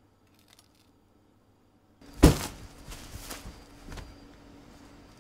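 A loud thunk about two seconds in, then a few lighter knocks, over a low steady hum.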